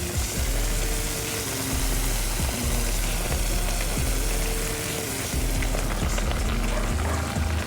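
Chicken frying in a pan with a steady sizzle, under a bass-heavy hip-hop beat.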